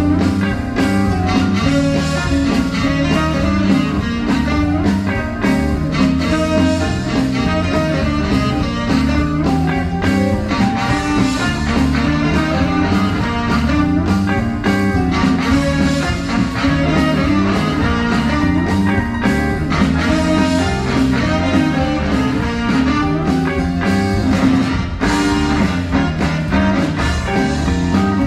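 Live swing band playing: electric guitar over upright bass and drums.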